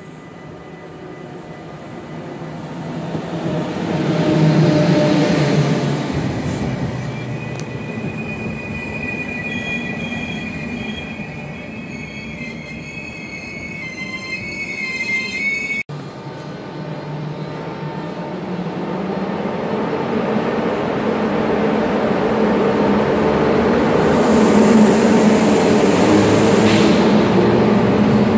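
NS 1700-class electric locomotive with DD-AR double-deck carriages running past a station platform: its rumble peaks about four seconds in, then the carriages roll by with high, wavering wheel squeal. About sixteen seconds in the sound cuts to another DD-AR double-deck train rolling past a platform, its rumble growing steadily louder toward the end.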